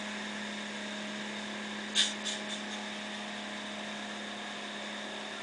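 Outrigger boat's engine running steadily under way, a constant hum with water and wind noise, broken by a short burst of noise about two seconds in and two smaller ones just after.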